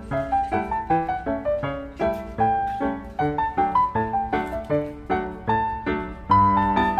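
Background piano music: a melody of struck notes, several a second, each fading after it is played.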